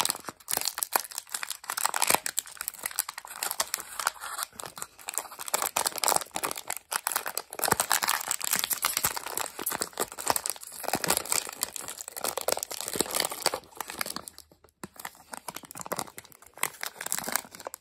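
Plastic Fruit Gushers snack pouch crinkling and tearing as fingers squeeze and pull it open, a dense run of crackles with a brief pause about three-quarters of the way through.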